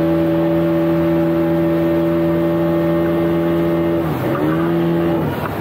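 Speedboat engine running at a steady high pitch over a rushing wash of water. About four seconds in the pitch dips as the throttle eases and comes straight back, then falls away near the end.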